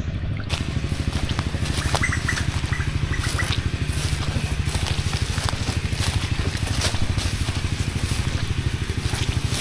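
Small boat engine running steadily with a fast, even putter, growing louder and noisier about half a second in.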